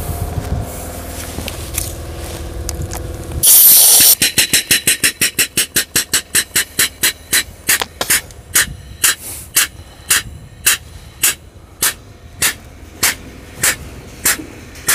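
An air-operated double-diaphragm pump, driven by compressor air, pumping waste diesel and oil. A low steady hum gives way about three and a half seconds in to a loud hiss of air. Then comes a run of sharp exhaust puffs from the pump's air valve, about four a second at first, slowing to about two a second.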